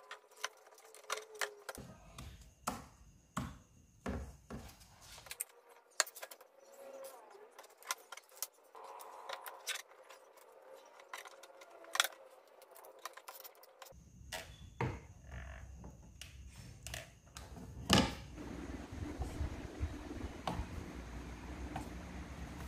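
Scattered clicks, taps and light rattles of plastic parts and wires being handled as a rocker switch and a control knob are fitted into a PVC panel, with one sharper snap about eighteen seconds in. A low steady rumble sits underneath in the second half.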